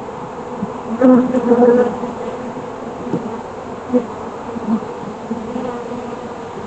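Honeybees buzzing in and around an opened hive: a steady hum that swells louder for about a second roughly a second in.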